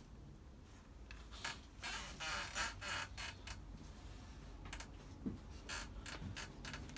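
Scattered clicks and brief rustling, the busiest stretch a couple of seconds in, over a steady low rumble: handling noise.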